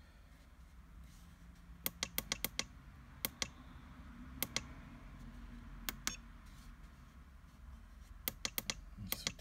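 Sharp clicks from the control of a Spektrum S2200 smart charger as its menus are scrolled, coming in short runs of several clicks with pauses between, over a low steady hum.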